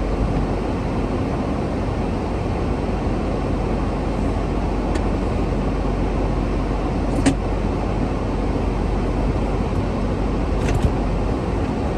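Steady engine and road noise inside a moving car, with a faint click about seven seconds in.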